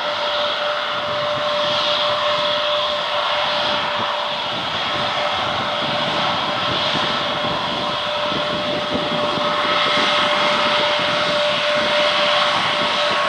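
Airbus A320neo's Pratt & Whitney PW1100G geared turbofan engines running at taxi power: a continuous jet noise with one steady tone held throughout. It grows a little louder from about two-thirds of the way in, and higher tones join it as the aircraft comes closer.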